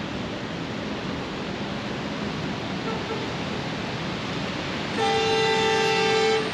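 Heavy rain pouring steadily; about five seconds in, a vehicle horn sounds one long steady honk lasting about a second and a half.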